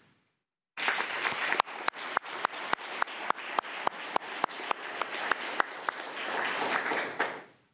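Audience applauding, starting about a second in. One close clapper's sharp claps stand out at about three a second, and the applause fades out near the end.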